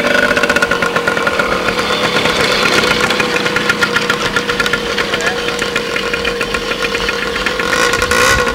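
Small Yamaha youth four-wheeler's engine running at a steady pitch with a rapid putter as it is ridden across grass.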